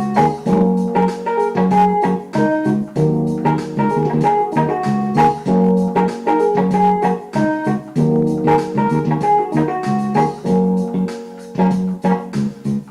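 Instrumental keyboard music: organ-like held chords with piano notes, changing about every second.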